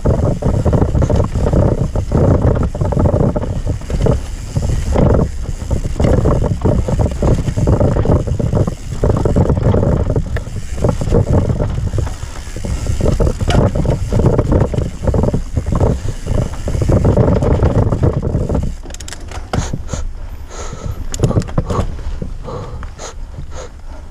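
Wind buffeting the microphone of a camera on a Yeti SB150 mountain bike descending dirt singletrack, over a rumble of tyres on dirt and a run of rattling clicks and knocks from the bike over bumps. About nineteen seconds in, the wind and rumble drop off as the bike slows, leaving scattered clicks.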